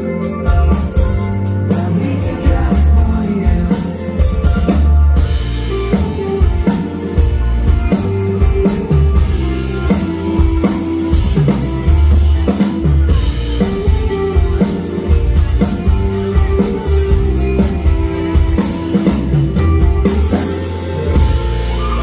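Indie rock band playing live, heard from the audience: a drum kit beating steadily over electric bass, electric guitars and keyboards. The drumming stops near the end.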